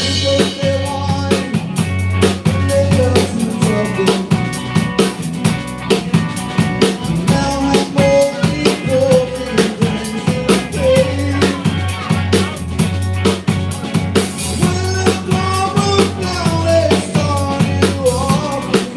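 A small band playing live: a drum kit keeps a steady groove of kick, snare and cymbals under a low bass part and a melody line that slides between notes.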